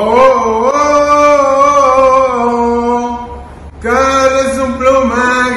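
A man singing unaccompanied, holding long notes in two phrases with a short break about three and a half seconds in.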